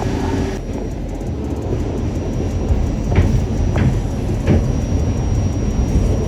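New York City subway train running with a loud, steady low rumble, and three brief squeaks a little past the middle.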